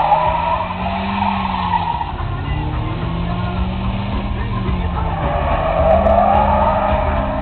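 BMW E36 316i's four-cylinder engine revving up and down in about three swells while its rear tyres squeal in a drift. The squeal is strongest at the start and again near the end.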